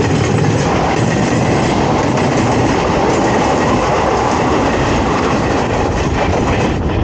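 Train wheels running on the rails: a loud, steady rattle of wheel-and-track noise.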